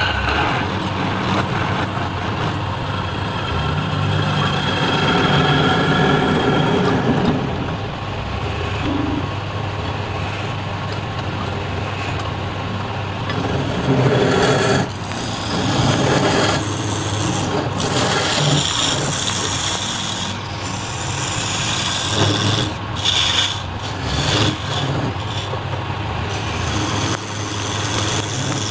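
Wood lathe running with a steady hum while a hand-held turning tool scrapes the end face of the spinning wooden blank, the scraping swelling and easing as the tool is pressed in and eased off.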